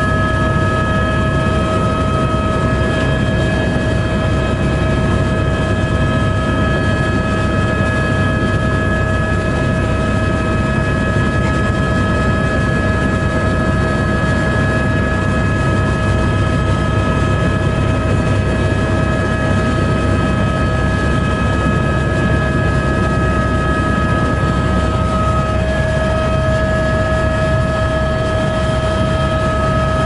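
Helicopter heard from inside its cabin in steady cruising flight: the engine and rotor make a constant drone, with a steady high turbine whine over it.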